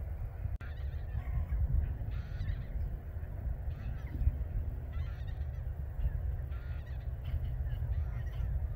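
Geese honking repeatedly, short harsh calls about every second, over a steady low wind rumble.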